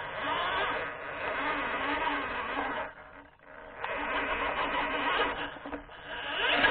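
Electric motor and gears of an HPI Venture Toyota FJ Cruiser RC crawler, heard from its onboard camera, whining and rising and falling in pitch with the throttle as it climbs a dirt bank under load. The motor lets off briefly about three seconds in, then picks up again.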